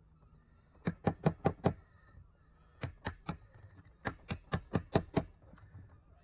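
Quick, sharp hammer taps on a metal rod set in a dinghy's plastic rowlock mount, in three runs: about five taps a second in, three near the middle, and about seven more after four seconds.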